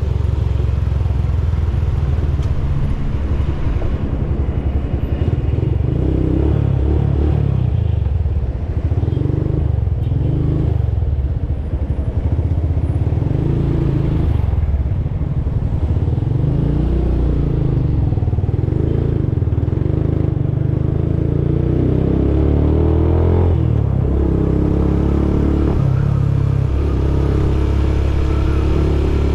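Motorcycle engine running while riding, its pitch rising and falling again and again as the throttle opens and closes.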